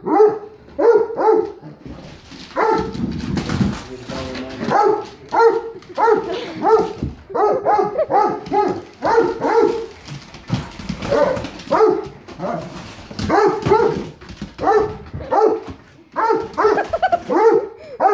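A dog barking over and over at a toy truck, short barks often in quick pairs. Between about two and four seconds in the barks give way to a stretch of lower, rougher noise.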